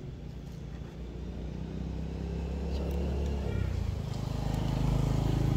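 A motor vehicle's engine running and drawing nearer, growing steadily louder, with a shift in its pitch about three and a half seconds in.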